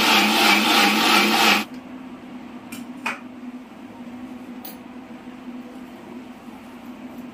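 Sun Nutri personal blender's motor running at speed, blending papaya and milk into a milkshake, then cutting off suddenly about a second and a half in. A sharp click follows about three seconds in.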